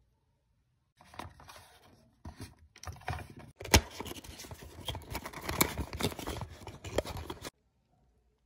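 Hands handling cardboard cosmetic boxes and small bottles on a tabletop: scraping and rustling with scattered sharp clicks and knocks, the sharpest a little under four seconds in. It starts about a second in and cuts off abruptly near the end.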